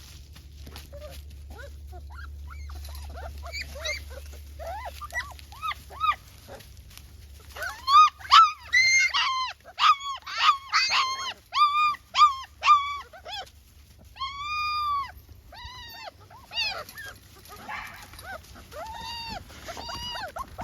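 Young puppies whining, a long string of short, high-pitched cries that rise and fall in pitch. The cries are loudest and come thick and fast in the middle, with one longer drawn-out whine a little later.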